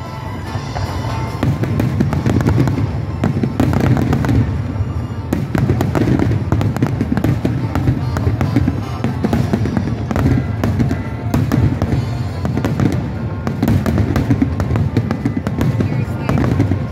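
Fireworks display with shells bursting in quick succession: a steady run of bangs and crackling over a low rumble, with music playing along.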